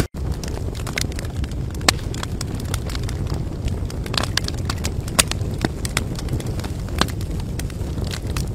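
Crackling fire: a steady low rumble with irregular sharp pops and snaps. It cuts out for a split second at the very start.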